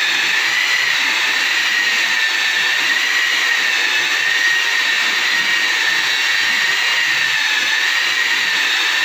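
Handheld electric polisher with a round buffing pad running steadily while polishing Athangudi cement floor tiles: a loud, even motor whine that wavers slightly in pitch as the pad is pushed across the floor.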